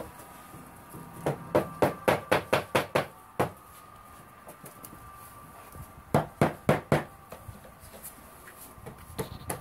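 Hammer knocking laminate floor planks into place: quick runs of sharp knocks, about three a second, one run near the start and another after about six seconds.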